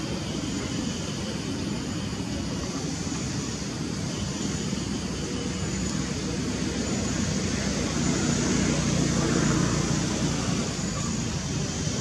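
A steady low engine rumble, like distant motor traffic or an aircraft, that swells about two-thirds of the way through and then eases off.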